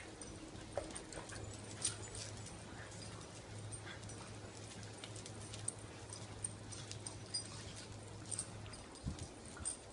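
Dogs playing and scuffling, with an occasional faint whine, scattered light clicks and a few soft thumps near the end, over a steady low hum.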